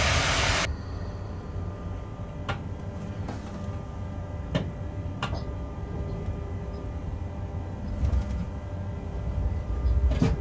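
Freight train heard from the locomotive cab, rolling slowly over pointwork: a steady low rumble with a few sharp clicks and knocks of the wheels over switch joints, more of them close together near the end. It opens with a loud hiss that cuts off suddenly just under a second in.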